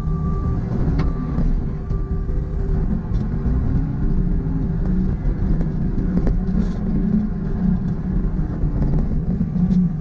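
John Deere 329E compact track loader's diesel engine working, its revs rising and falling, over a steady whine and a couple of sharp knocks. A backup alarm beeps a few times near the start.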